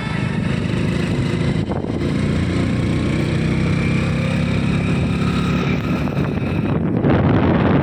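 Engine of a moving road vehicle running steadily, with wind rushing over the microphone; the wind grows louder near the end.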